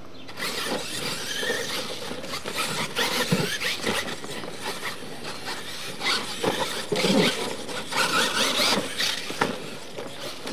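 Losi LMT radio-controlled monster trucks racing on dirt: the high whine of their electric motors and gears rises and falls in pitch as they speed up and slow down, with tyres scrabbling on dirt and now and then a knock.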